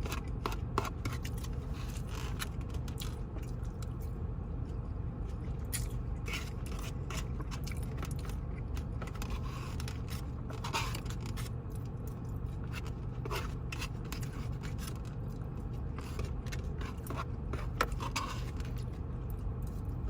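Eating from a takeout container: a fork scraping and picking at the food in scattered short scrapes and clicks, with chewing, over a steady low hum.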